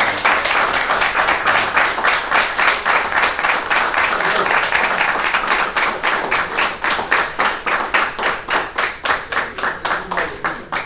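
Audience applauding. The clapping is dense at first, then thins to separate claps in the second half and dies down near the end.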